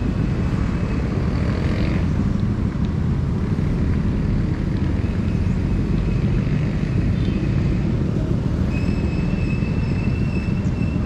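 Steady low rumble of city street ambience and traffic, heard on a walking handheld recording. A thin, high, steady tone sounds briefly near the start and again from about nine seconds in.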